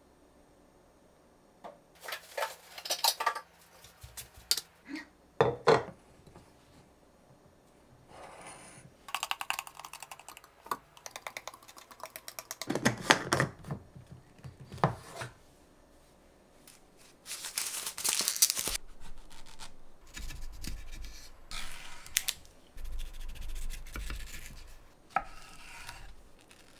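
Kitchen handling sounds. Glass and plastic containers and lids clink and knock against a counter, and leftover berry smoothie is poured from the blender jug into a lidded container. Near the end, a knife slices a mango on a wooden end-grain cutting board with soft, dull thuds.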